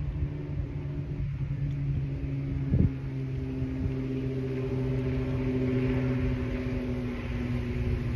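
A motorboat engine drones steadily as a boat passes on the lake. There is a brief knock about three seconds in.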